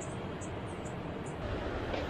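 Steady rush of ocean surf breaking on a rocky shore, with a low wind rumble on the microphone. A few short high chirps sound over it in the first second and a half.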